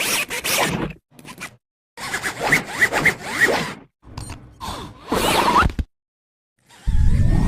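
A string of short cartoon sound effects: quick swishes and zip-like rasps with brief whistling pitch glides, in four separate bursts with dead silence between them. Near the end a louder, deeper sound cuts in.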